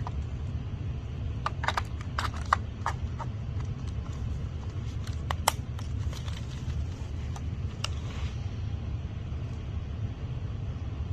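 Small plastic clicks and taps of a handheld camcorder being handled, a cluster of them about one and a half seconds in and single clicks later, as the battery and card compartment is worked, over a steady low hum.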